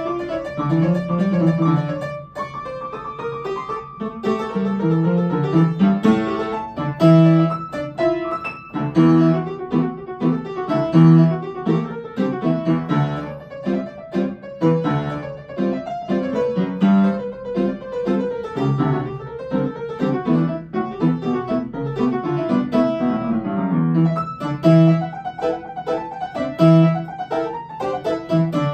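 Upright piano played solo at a fast pace: quick runs of notes under loud accented chords that come every second or two.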